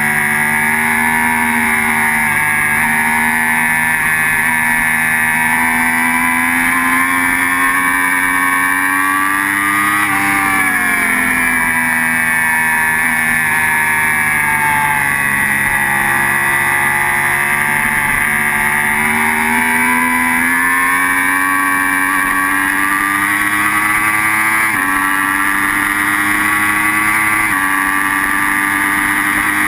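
Sport motorcycle's engine running hard on a racetrack, heard from the bike itself. Its note dips about ten seconds in, then climbs steadily with the revs, and it changes pitch abruptly twice near the end as the rider shifts gear.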